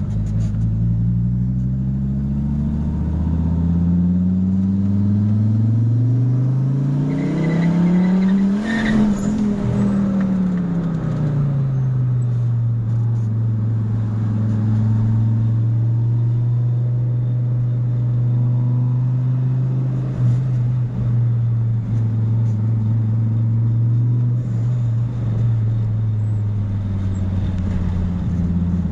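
Fiat Marea 2.0 20V turbo five-cylinder engine climbing steadily through the revs for about nine seconds, then easing off and settling into a steady cruise, with a slight rise near the end.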